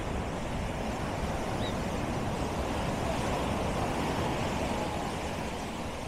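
Surf washing onto the beach, a steady rushing noise that swells over a few seconds and eases off again, with a low rumble underneath.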